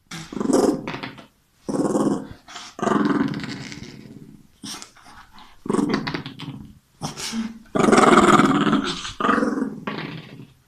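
Small Bolognese dog growling in a string of about nine short bouts, each half a second to a second and a half long, the loudest and longest about eight seconds in.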